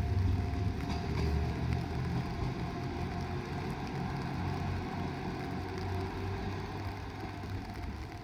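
Diesel railcar train running past a level crossing: a low engine and wheel rumble that slowly fades.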